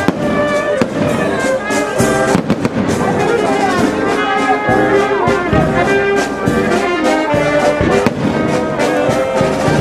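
A brass band playing, with trombones and trumpets, while aerial firework shells go off overhead in repeated bangs and crackles.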